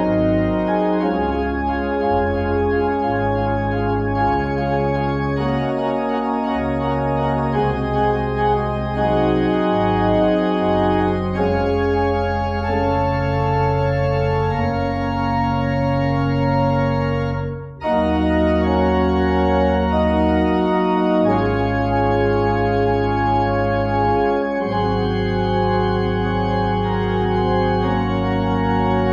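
Organ music: slow, sustained chords over long held deep bass notes, the chords changing every second or two. The music stops for a moment past halfway, then picks up again.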